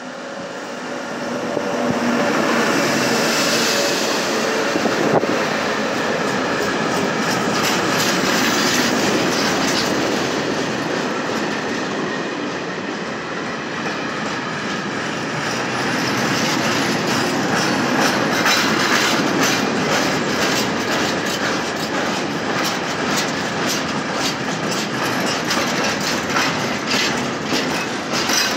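Freight train of open wagons hauled by an ÖBB electric locomotive passing close by: the locomotive comes through in the first couple of seconds, then a long steady rumble of the wagons rolling past, with rapid clicks of wheels over rail joints that grow more frequent in the second half.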